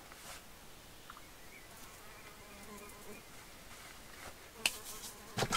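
A mosquito whining faintly close by, its wavering buzz coming and going, followed by two sharp clicks near the end.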